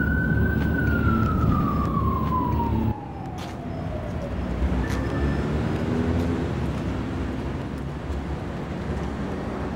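An emergency vehicle siren wails through one long cycle, rising, holding high, then slowly falling away over about four seconds, over a steady traffic rumble. About three seconds in the rumble cuts off, leaving quieter street background.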